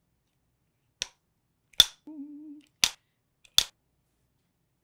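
Wooden film-slate clapstick snapped shut four times in quick succession, each a sharp clap, with a short hummed note between the second and third claps.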